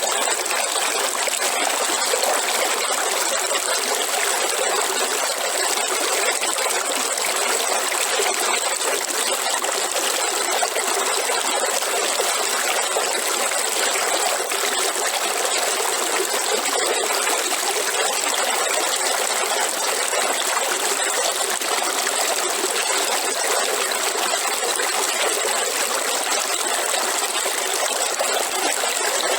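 River water flowing steadily, an even, unchanging rush with no pauses or distinct events.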